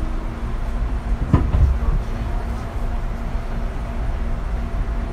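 Fujikyu 6000-series (ex-JR 205-series) electric train standing at a platform, its equipment giving a steady low hum over a rumble. About a second and a half in, a brief louder sound drops quickly in pitch.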